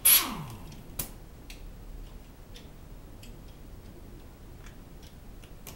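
A hand-held pneumatic tool on an air hose is triggered briefly: a short loud blast of air whose motor whine falls away over about half a second. A sharp click follows about a second later, then scattered faint ticks.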